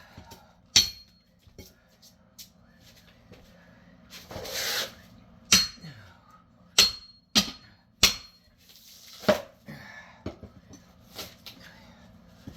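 Hand hammer blows on steel, about six sharp strikes at uneven intervals with a short metallic ring, knocking apart old timber door framing. A longer rasping, splintering noise about four seconds in.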